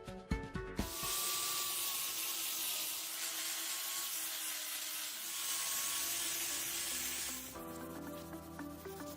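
Background music with steady held notes, over a loud, even hiss that starts about a second in and stops a couple of seconds before the end.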